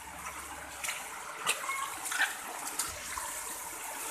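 Shallow floodwater running and trickling over a muddy, stony path, with a few sharp clicks in between.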